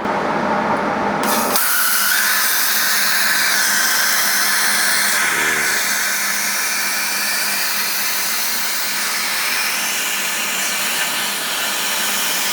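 CNC plasma cutter torch cutting a slot through 4 mm wall steel box section: a steady, loud hiss that starts about a second in as the arc strikes and runs on without a break.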